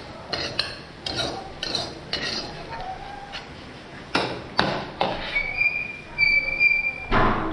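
A cooking utensil clinking and knocking against a pan as food is stirred, in irregular strokes. A short, high ringing tone sounds about two-thirds of the way through, and a heavier knock comes near the end.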